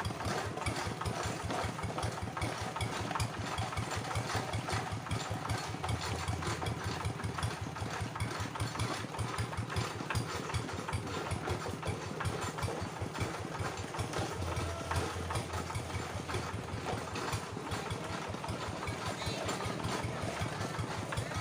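Single-cylinder diesel engine of a two-wheel hand tractor running steadily, with a rapid, even beat of firing strokes.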